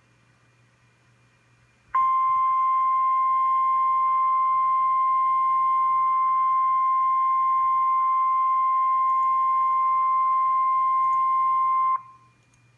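NOAA Weather Radio's 1050 Hz warning alarm tone: one steady, high-pitched, unwavering tone that starts about two seconds in, holds for about ten seconds, and cuts off sharply. It is the alert signal that comes before a severe thunderstorm watch message. Before and after it there is only a faint hum.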